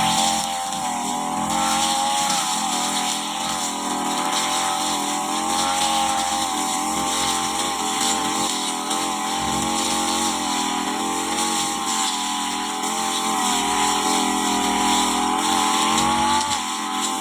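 Petrol brush cutter engine running at high speed while clearing grass, its high-pitched note wavering slightly up and down under changing load.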